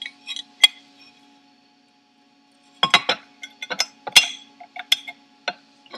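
Light metal clinks and taps as the turbo's aluminium compressor backplate and seal parts are handled and seated by hand over the bearing housing. A few clicks come near the start, then a quick run of sharper clinks from about three to five and a half seconds in.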